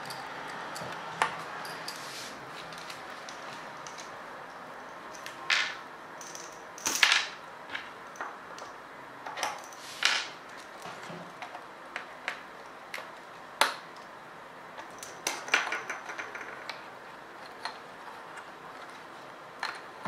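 Scattered small clicks, taps and short scrapes of metal and hard plastic as a laptop's copper CPU heatsink is handled and seated in the open case, over a faint steady hiss.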